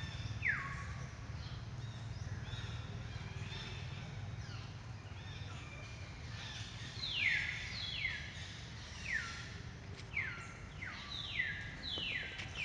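Animal calls: a series of short, high calls, each sweeping downward, coming more often in the second half, over a low steady background rumble.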